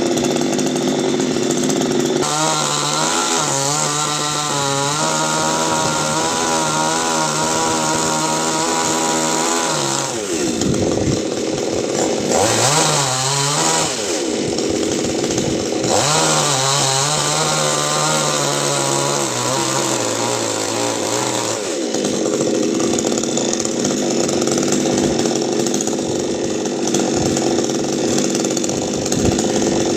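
Two-stroke chainsaw cutting a coconut tree, running at high revs. Its pitch holds steady, then dips and rises several times as the load on the chain changes, and for the last third it runs rougher, without a clear pitch.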